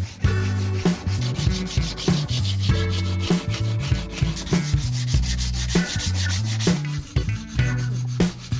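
Background electronic music with a steady beat and a bass line.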